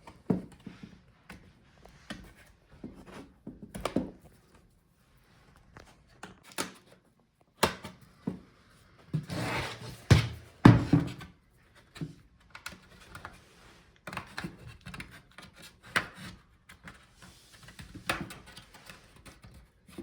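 Plastic pry tool scraping and levering along the seam of a laptop's bottom case, with scattered clicks and knocks as the case's plastic clips come loose, and a louder stretch of scraping and knocking about halfway through.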